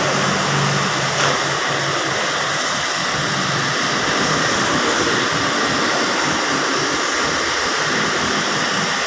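Steady, loud rush of blowing air, even and unbroken, with a faint low hum underneath.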